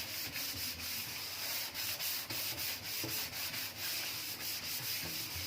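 A scouring sponge scrubbing a stainless-steel sink with a cleaning cream, in steady back-and-forth rubbing strokes.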